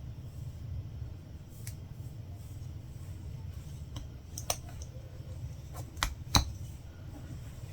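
A latch hook tool clicking as yarn is hooked through rug canvas: a few sharp small clicks, the loudest about six seconds in, over a low steady hum.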